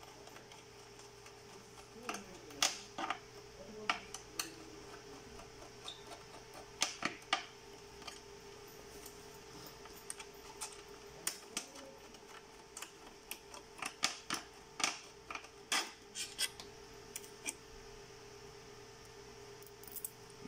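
Irregular small clicks and taps of hands and small parts being handled inside an opened SLE 5000 infant ventilator as a circuit board is freed from its mountings, over a steady faint hum.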